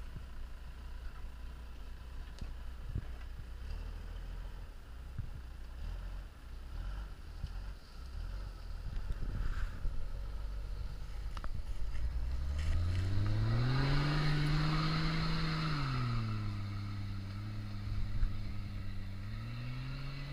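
Toyota Land Cruiser 80-series 4x4's engine pulling at low revs as it crawls up a loose sandy trail. About twelve seconds in, it revs up, holds high for a couple of seconds, eases back, and climbs again near the end.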